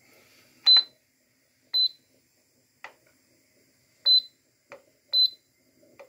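Air fryer control panel beeping as its timer button is pressed to set the cooking time: four short, high-pitched beeps, with quieter clicks in between.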